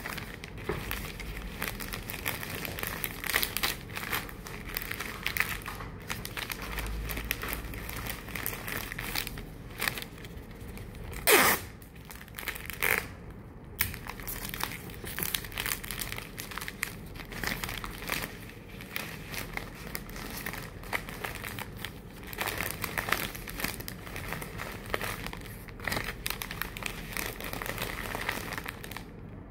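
Irregular crinkling and rustling handling noise with scattered clicks, and one louder short scrape about eleven seconds in.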